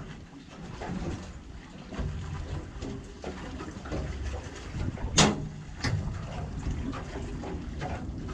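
Water lapping against a small boat's hull with a low rumble of wind. A sharp knock comes about five seconds in, then a lighter one just after.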